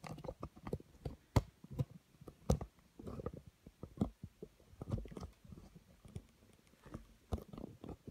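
Handling noise as a camera phone is picked up and moved by hand: a run of irregular clicks, taps and light knocks.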